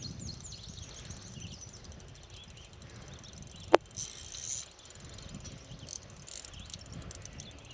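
Spinning reel being cranked against a hooked fish, a faint steady run of small high clicks, with one sharp knock a little under four seconds in.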